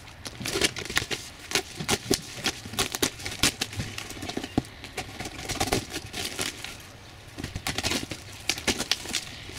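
A knife slicing through packing tape and cardboard on a taped-up box, then the cardboard being torn and pulled open: a run of irregular crackles and rips that eases off briefly about two-thirds of the way through.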